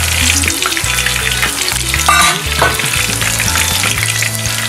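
Shrimp tempura deep-frying in hot oil, with loose drops of batter frying around it: a steady, dense crackle and sizzle.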